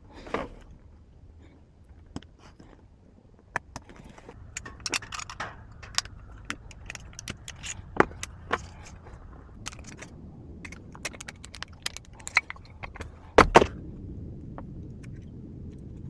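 Small metal lock parts clicking and clinking as a Kwikset doorknob is rekeyed by hand: the cylinder, pins and tools tapping against each other and the bench in irregular sharp clicks. A louder double knock comes a couple of seconds before the end.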